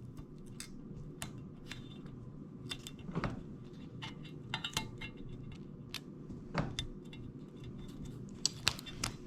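Scattered light clicks and taps of small parts being handled, as a new gasket is slipped onto a blower motor assembly.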